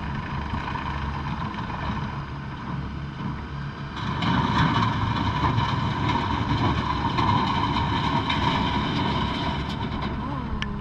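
2013 Bobcat T770 skid steer loader's diesel engine running steadily with a whine over it, getting louder about four seconds in, with a short falling tone near the end.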